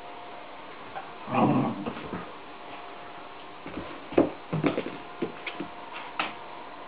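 A German shepherd puppy at play, giving a short whining growl about a second and a half in, then a scatter of short sharp yips and knocks from about four seconds on.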